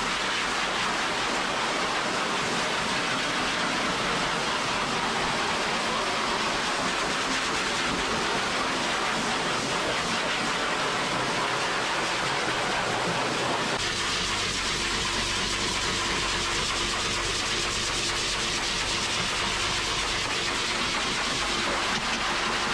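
Groomer's high-velocity pet dryer blowing a steady rush of air through its hose and nozzle onto a wet dog's coat. About two-thirds of the way in the sound shifts, with more low rumble and a faint steady hum.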